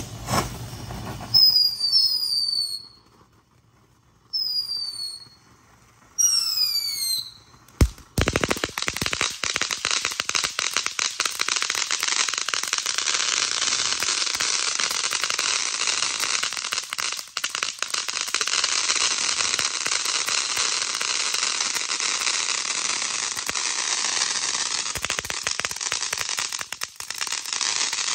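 Ground fireworks: short falling whistles over the first seven seconds, then a sharp bang about eight seconds in, and a large fountain firework spraying with a steady hiss and dense crackling for about twenty seconds.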